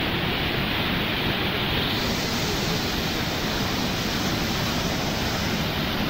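Kivach waterfall and its rapids: a steady rush of falling, churning water, turning brighter and hissier about two seconds in.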